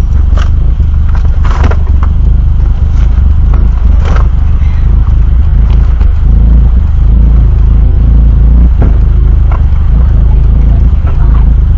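Car engine idling, a steady loud low rumble heard from inside the cabin, with a few short clatters in the first few seconds.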